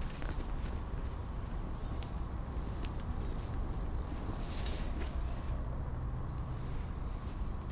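Rustling of a backpack being unpacked and light clicks and knocks of camera gear being handled, with a denser patch of rustling about four and a half seconds in, over a steady low rumble.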